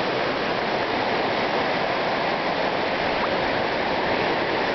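Shallow stream water running steadily.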